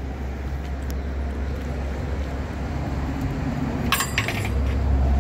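A bunch of keys jingling briefly about four seconds in, over a steady low rumble.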